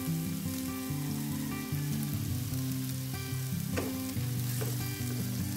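Sliced bitter gourd, tomato and onion sizzling in a hot frying pan while a wooden spatula stirs them, with a few short clicks in the second half. Background music of steady notes, changing every fraction of a second, plays over the frying.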